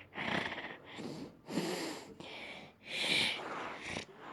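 A dog snorting in short bursts, about three in a row roughly a second apart.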